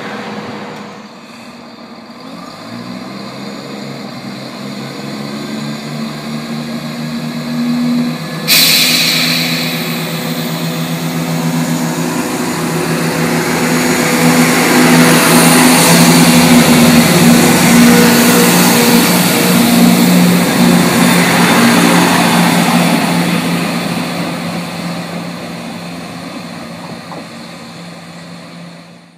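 Class 170 Turbostar diesel multiple unit pulling away: its diesel engines rev up about two seconds in, a sudden loud hiss sets in about eight seconds in, and the engine drone is loudest as the train passes close, then fades as it runs away.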